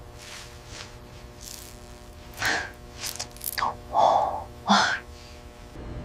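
A woman's soft breathy exhalations, like blowing and sighing, four short breaths between about two and a half and five seconds in.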